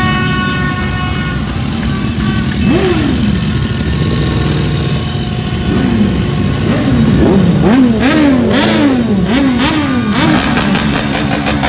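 Large sport motorcycle with an aftermarket slip-on exhaust idling, revved once about three seconds in, then blipped hard several times in quick succession, the pitch rising and falling with each blip, before it settles back to idle near the end.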